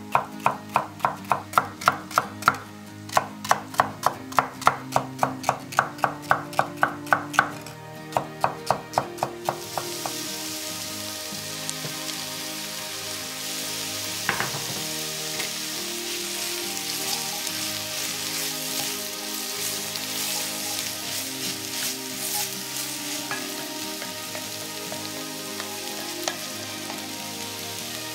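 Chef's knife chopping celery stalks on a wooden cutting board, about three strokes a second with two short pauses. About ten seconds in this gives way to sliced carrots and celery sizzling as they sauté in an enamelled cast-iron pot, with a single knock about fourteen seconds in.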